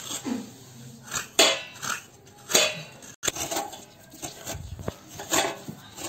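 Fresh coconut flesh being scraped out of the shell on the serrated metal head of a hand coconut scraper: short scraping strokes, about one a second.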